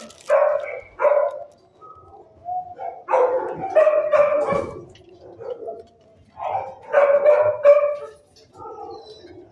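Dog barking in bursts: two single barks, then longer runs of barks about three seconds in and again about seven seconds in.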